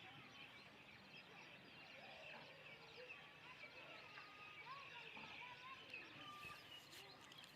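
Faint background birdsong: many short chirps and whistles from several birds over a steady high chorus, with a couple of faint clicks near the end.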